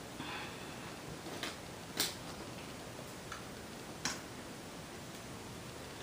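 A few small sharp clicks, the loudest about two seconds in, with a short rustle near the start: hands and bobby pins working through hair while pinning it into a bun.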